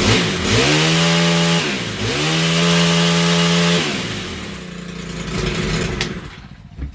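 Stihl HT101 pole saw's 4-MIX four-stroke engine revved twice to full throttle, each rev held for about a second and a half before dropping back to idle, then falling quiet near the end. It is running cleanly on its newly fitted carburetor.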